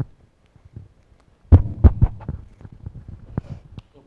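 Handling noise from a handheld microphone being passed to a new speaker: a string of low thumps and knocks with small clicks, the loudest about a second and a half to two seconds in.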